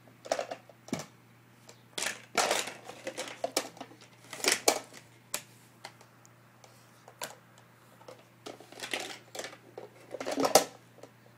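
Plastic shape-sorter blocks and lid clattering and knocking as a baby handles them: irregular clicks and short rattles, the loudest near the end as the red plastic bucket is moved.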